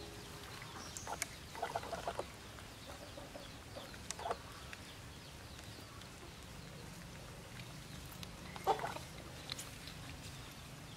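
Chickens clucking in short, scattered calls, a small cluster about two seconds in and the loudest about nine seconds in, over a quiet background.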